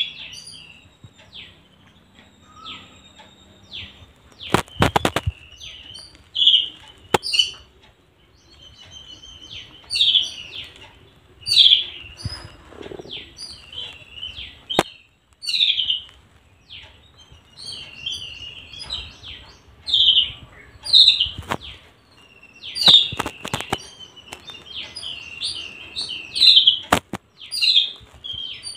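A sparrow chirping over and over, short high chirps coming every second or so, with a few sharp clicks in between.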